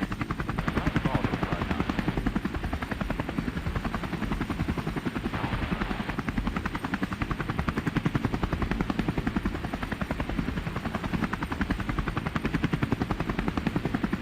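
Helicopter in flight: the rotor beats in a fast, steady rhythm over the engine noise.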